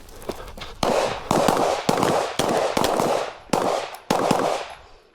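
A string of about seven pistol shots fired roughly half a second apart during a shooting-while-moving drill, each report trailing off in a short echo.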